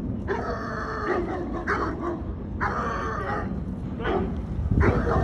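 Large dog barking in drawn-out, pitched calls: two long ones of nearly a second each, with shorter barks between them and another near the end.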